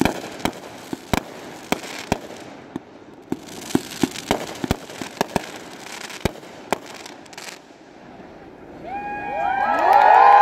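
Fireworks going off in a rapid, uneven string of sharp bangs, about two or three a second, over a crackle. The bangs stop about seven seconds in, and near the end a loud swell of many overlapping whistling tones rises and falls.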